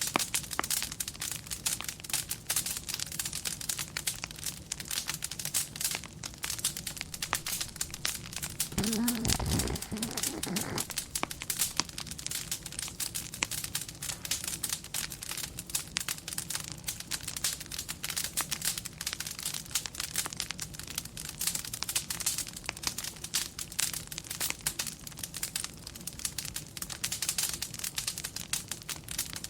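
Wood fire crackling and popping irregularly throughout. About nine seconds in, a dog snores once, a low sound lasting about two seconds.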